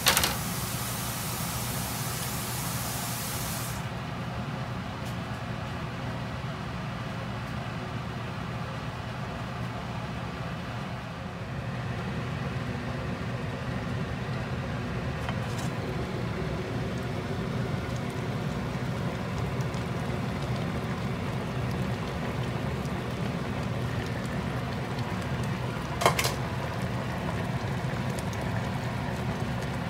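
A pot of Andong braised chicken (jjimdak) cooking on the stove. A bright hiss in the first few seconds cuts off abruptly, and then comes a steady bubbling noise with a low hum as the pot boils. A single sharp knock sounds near the end.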